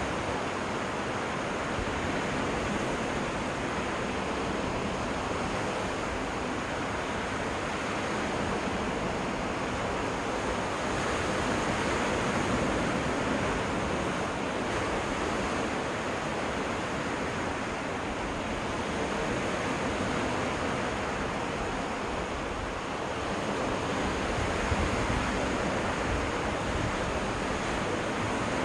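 Waves washing onto a freshwater lake beach in a steady surf, swelling a little louder now and then as larger waves come in.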